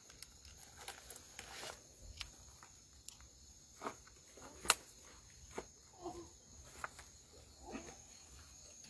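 Footsteps rustling and crackling through dry grass and brush, with scattered sharp clicks, the loudest a little past halfway. Behind them is a steady high insect chirring, like crickets.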